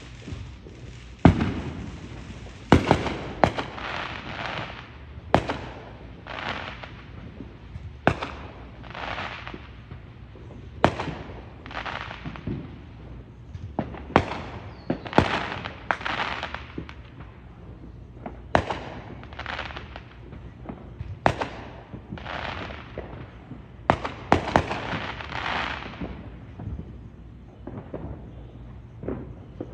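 Neighbourhood fireworks bursting: a long irregular string of sharp bangs, often two or three within a couple of seconds, each trailing off in a rolling echo. The loudest bang comes about a second in.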